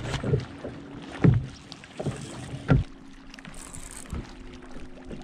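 Hook set and fight with a bass from a fishing kayak: handling noise with two loud knocks about a second and a half apart, then a low steady hum as the reel is wound in.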